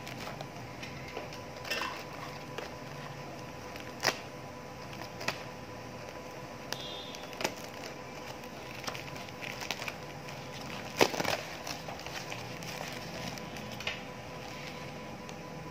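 Foam packaging wrapped in clear plastic being handled, cut with scissors and pulled apart: scattered crinkles, clicks and crackles, the loudest about eleven seconds in, over a faint steady hum.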